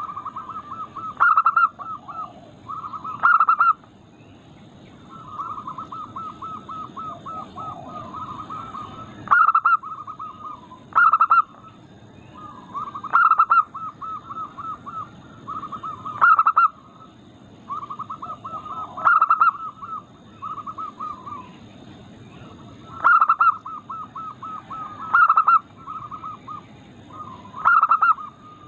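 Zebra doves (local perkutut) cooing over and over. Each phrase opens with a loud note and runs on into a quick string of short coos, and a new phrase comes every two to three seconds.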